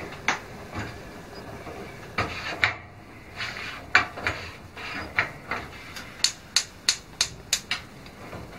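Gas cooker's spark igniter clicking as the oven control knob is held in to light the oven burner: single sharp clicks at first, then a quicker run of about three clicks a second near the end.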